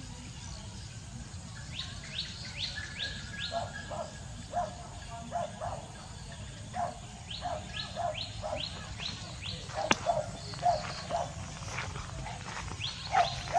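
Birds calling: bursts of quick rising chirps, about four a second, over repeated lower call notes, with a steady low outdoor rumble underneath. A single sharp click comes about ten seconds in.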